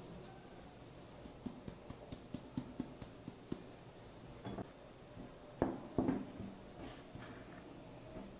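Metal fork tapping and scraping against a glass mixing bowl as flour is stirred into a crumbly butter dough: faint ticks at first, then a few louder knocks past the middle.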